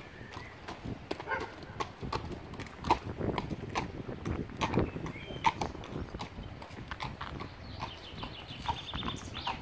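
Horses' hooves clip-clopping at a walk on a hard surface, an irregular run of sharp strikes from more than one horse. A brief high chirping call near the end.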